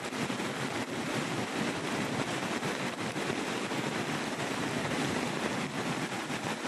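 Muddy flash-flood river rushing past in a steady, turbulent torrent of water noise.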